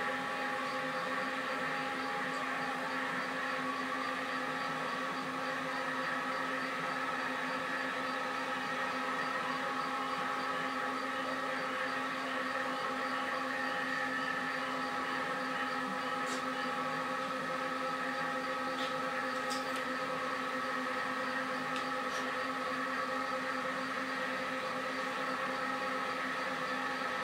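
A steady machine hum made of several held tones, unchanging in level, with a faint even high-pitched chirping over it.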